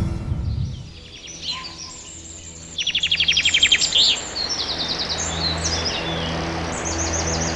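Songbirds chirping and singing, with a fast even trill of repeated notes about three seconds in as the loudest part. Music fades out at the start, and a low steady hum runs underneath.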